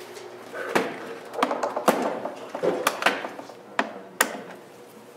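Small screws being worked out of a device's bottom panel with a screwdriver and set down on the panel: a series of about seven sharp clicks and taps with smaller ticks between, over faint background music.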